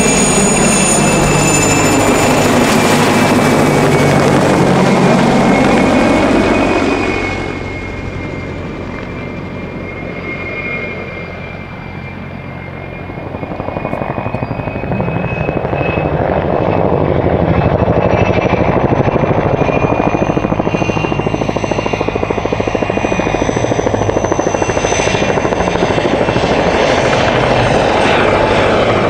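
PZL-Świdnik Mi-2 helicopter flying low: main-rotor chop over the steady whine of its twin turboshaft engines. Loud as it passes close, it fades for several seconds as it moves off, then grows loud again as it comes back.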